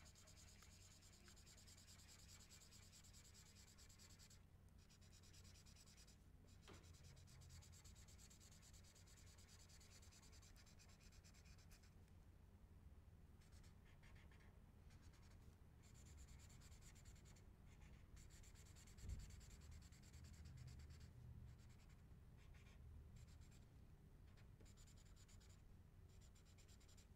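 Faint scratching and rubbing of a washable marker on orange paper strips as a pumpkin face is drawn and coloured in, broken by short pauses as the pen lifts. There is one light tap about two-thirds of the way through.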